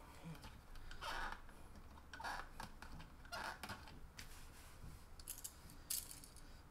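Faint handling noise of small hand tools and parts: three short scraping rustles, then two sharp clicks near the end.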